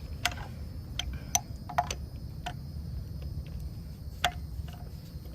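Scattered sharp metallic clicks and ticks as the 1998 Kawasaki Ninja 500R's parallel-twin engine is turned over slowly by hand at the crankshaft to check that it is not seized and has compression. A low steady hum underlies them.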